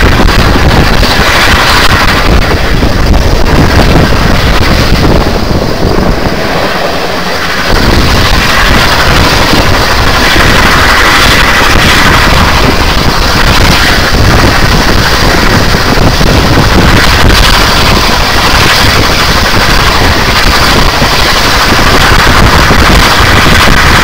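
Heavy wind buffeting the microphone held out of a moving train's window, over the running noise of the carriages on the track. The low buffeting eases briefly about seven seconds in.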